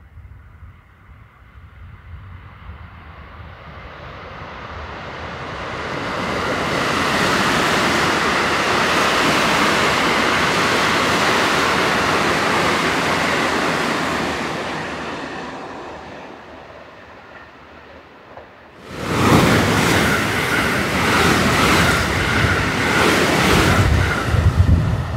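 Electric trains passing through a station at speed. The first rushes in gradually, runs past and fades away. A second starts suddenly about nineteen seconds in and runs past loudly, with repeated wheel clacks and a steady whine.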